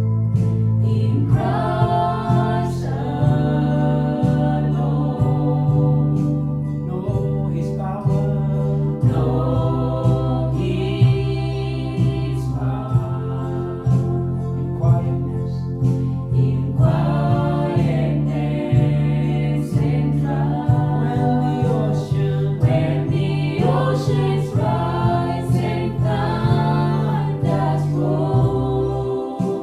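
Worship song sung by a group of voices over a band with steady bass and keyboard accompaniment.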